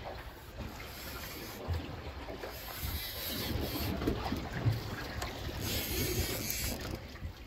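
Wind buffeting the microphone and sea water sloshing against the side of a small aluminium boat, with louder gusts of hiss about three and six seconds in.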